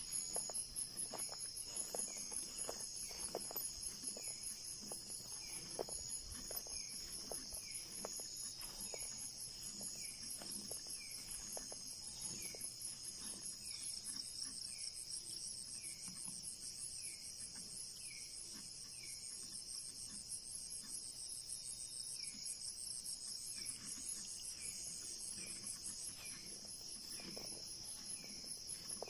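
Night chorus of insects, several crickets or katydids trilling steadily at high pitch, with a short falling chirp repeating over and over beneath them. Faint scattered rustles and knocks come through, mostly in the first half.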